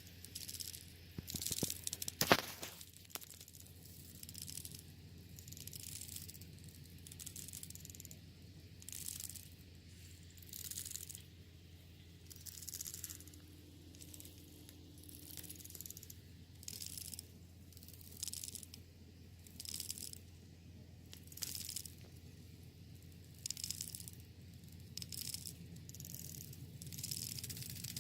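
Termites making a rattling noise in short bursts every second or two, over a faint steady hum. A few sharp clicks about two seconds in are the loudest sounds.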